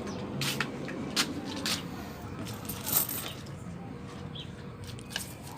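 Coins clinking: a handful of separate sharp clinks spread over a few seconds, the way loose change found in washed trouser pockets sounds.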